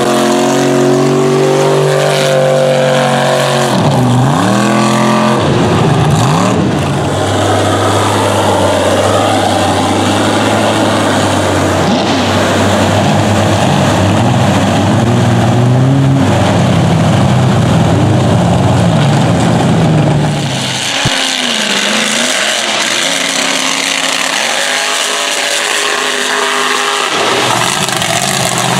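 Big mega mud truck engines revving hard as the trucks churn through a mud bog pit, the pitch rising and falling sharply with the throttle. About three-quarters through, the deep rumble drops away suddenly and another engine carries on revving.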